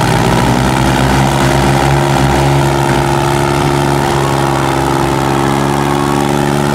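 Two diesel tractors chained back to back in a tochan pull, both engines at full throttle under heavy load. The result is a loud, steady engine drone whose pitch holds constant throughout.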